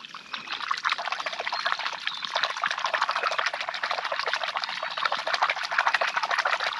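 Water splashing and sloshing continuously as a giant snakehead is held in the water and moved to revive it before release. The sound stops suddenly at the very end.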